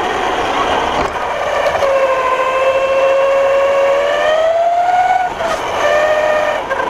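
Electric RC truggy driving flat out: a high motor-and-gear whine that rises and falls with the throttle, climbing about four seconds in and dipping briefly near five and a half seconds, over tyre noise on wet cobblestones.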